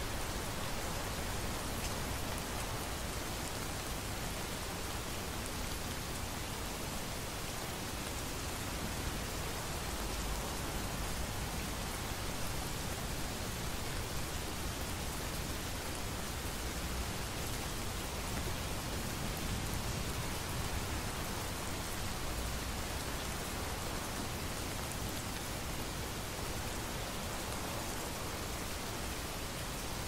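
Thunderstorm rain falling steadily as an even hiss, with a few low rumbles of distant thunder underneath, around ten, seventeen and twenty-two seconds in.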